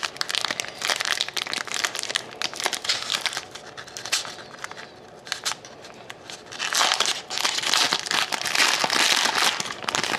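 Foil wrapper of a 2011-12 Panini Rookie Anthology hockey card pack crinkling as it is torn open and pulled off the cards by hand. There are two spells of crinkling, the second and louder starting about seven seconds in, with a quieter lull between.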